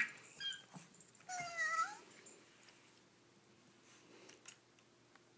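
Electronic toy kitty giving a single meow about a second and a half in.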